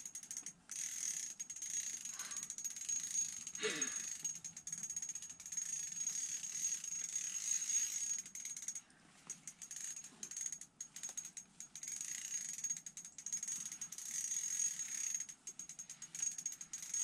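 Spinning reel's drag ratcheting, with the reel being cranked, as a hooked smallmouth bass pulls line on light tackle: a fast run of fine clicks that stops and starts.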